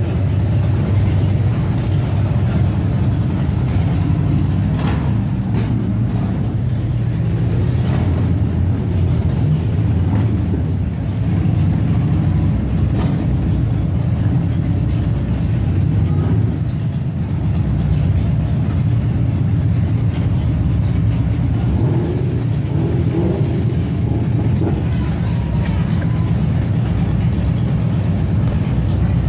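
Several cruiser motorcycles idling together, a steady low engine rumble.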